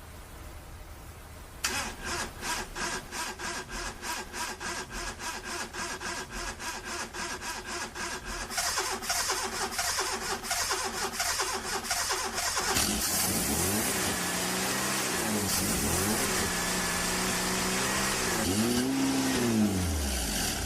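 Car engine cranking on its starter for about eleven seconds, a long, rhythmic churn, before it catches about 13 seconds in. It then runs and is revved up and down several times, highest near the end.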